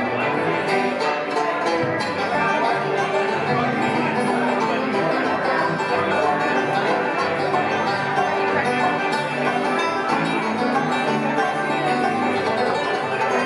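Acoustic bluegrass band playing an instrumental break, with no singing: banjo picking, bowed fiddle, strummed acoustic guitar and dobro together at a steady level.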